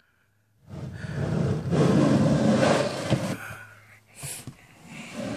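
Plastic reptile tub scraping as it is slid along a rack shelf, with a sharp click a little after three seconds in, then more scraping near the end.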